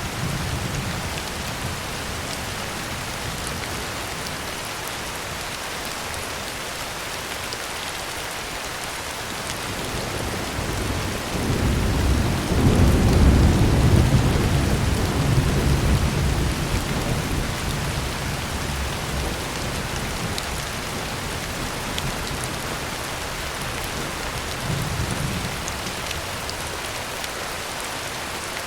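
Heavy rain drumming steadily on a tin roof, with a roll of thunder rumbling in about halfway through, swelling to its loudest and fading away over several seconds. Fainter low rumbles come near the start and again near the end.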